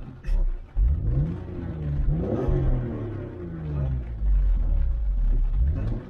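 BMW E46 M3's straight-six engine heard from inside the cabin, revving up and down as the car accelerates and lifts off, its pitch rising and falling several times.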